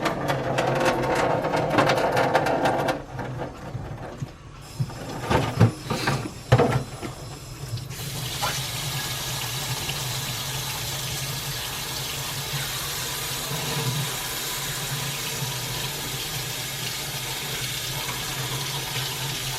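Kitchen clatter and a few sharp knocks, then from about eight seconds in a tap runs steadily into a sink, over a constant low hum.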